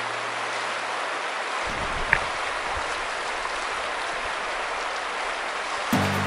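River current rushing over rocks in a shallow rapid, an even hiss of moving water, with one brief sharp click about two seconds in.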